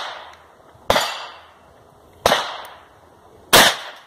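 .357 Magnum revolver fired three times, about a second and a third apart, each shot sharp with a short echoing tail.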